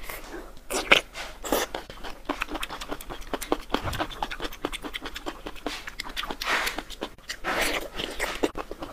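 Plastic-gloved hands folding a slippery sheet of fresh jellyfish around chopped chili, herbs and peanuts: a run of many quick, wet clicks and crinkles from the gloves and the sticky, sauced sheet.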